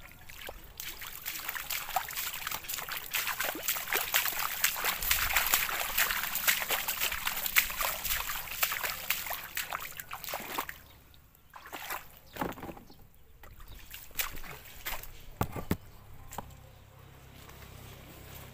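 Water sloshing and splashing, dense and continuous for about the first ten seconds, then a few separate splashes.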